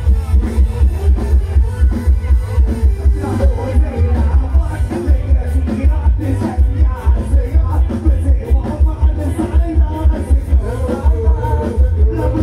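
Live band music blasting from a Thai rot hae stage truck's sound system: a heavy, fast bass beat with singing over it.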